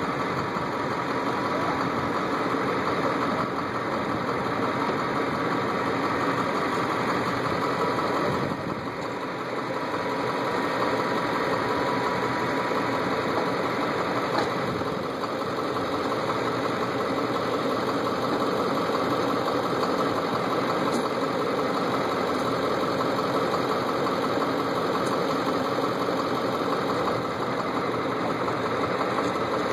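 Harvest machinery engine running steadily, with a brief dip in loudness about eight seconds in.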